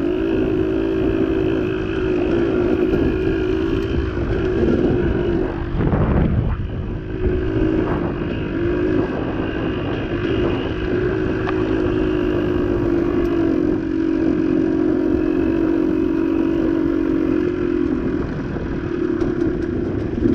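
Off-road vehicle engine running at steady revs while riding a rough trail. Its note breaks up briefly about six seconds in with a jolt, then settles back to steady.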